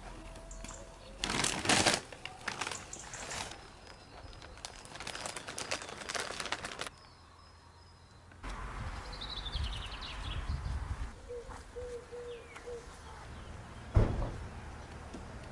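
Rustling and scraping in bursts as gloved hands dig through potting soil in a terracotta pot. Later a bird chirps in a quick falling run and a dove gives a few short low coos, with a sharp thump near the end.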